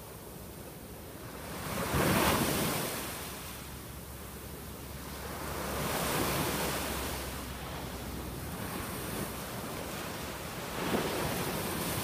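Small surf breaking and washing up a sandy beach, the rush of water swelling and fading three times as successive waves come in.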